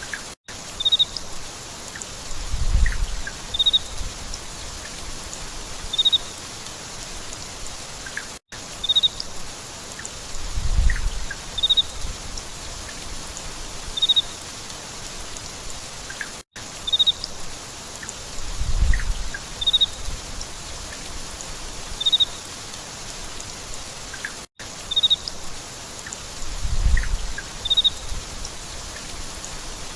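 Steady rain falling on surfaces, with short high chirps about every two seconds and a low rumble about every eight seconds. The whole pattern repeats every eight seconds, as in a looped rain recording.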